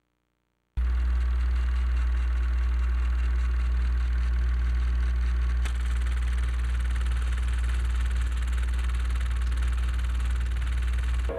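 A steady low hum with hiss over it, starting abruptly about a second in and holding unchanged throughout.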